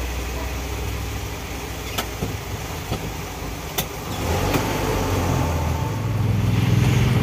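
Coal truck's diesel engine running in slow stop-and-go traffic, heard from inside the cab, with two sharp clicks about two and four seconds in. Past the middle the engine gets louder as it picks up revs.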